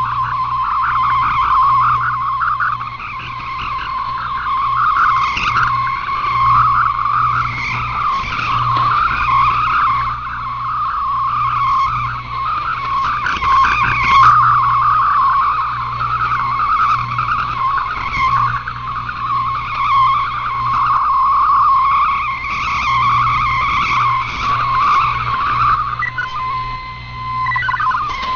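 Shortwave digital-mode data signal, most likely the slow multi-tone Olivia 32-2000 mode, received off the air: a dense, fast warbling of shifting tones over band hiss and a low hum. About 26 seconds in it stops and gives way to steady tones.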